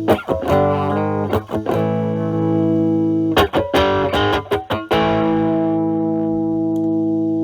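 Overdriven electric guitar: a Stratocaster through a Metal Pedals Rawhide overdrive at about gain 10–11, into the drive channel of a Marshall Valvestate amp. It plays quick runs of picked notes between held chords and ends on a long ringing chord.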